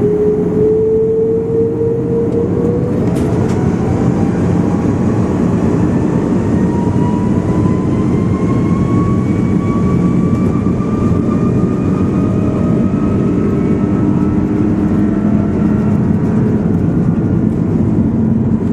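Airbus A330 turbofan engines running with a heavy, steady rumble. A whine over the rumble holds steady, then from about three seconds in climbs slowly in pitch for several seconds before levelling off, as the engines spool up.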